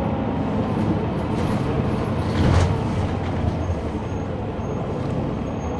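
Inside the back of a 2003 Neoplan AN459 articulated bus: its Caterpillar C-9 diesel engine running with a steady low rumble, briefly louder about two and a half seconds in.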